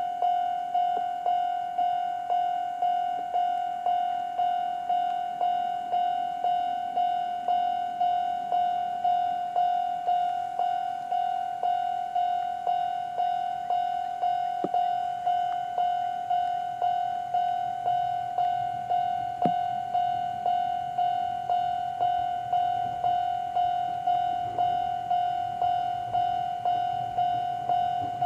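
Japanese railway level-crossing electronic alarm, the old-type standard tone pitched high, ringing a steady 'kan-kan' about twice a second. In the last ten seconds a train's low rumble grows beneath it as the train approaches.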